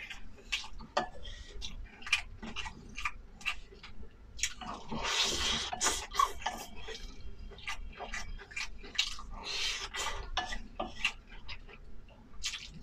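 Eating utensils clicking and scraping against a bowl in many short irregular taps, with two longer scraping, hissing stretches about five and nine seconds in.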